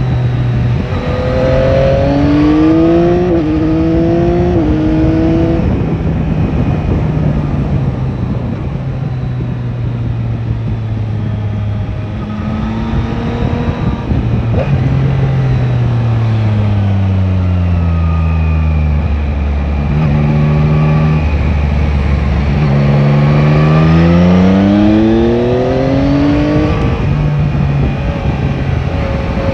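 Yamaha Tracer 9 GT's 890 cc inline-three engine under way, with wind rush: the revs climb through a few quick upshifts about one to five seconds in, fall away as the bike slows and shifts down around the middle, then rise again as it accelerates near the end.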